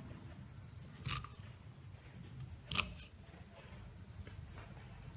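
Kitchen knife cutting through a bunch of raw long beans onto a wooden chopping board: two crisp cuts, about a second and a half apart, with a few fainter ones between.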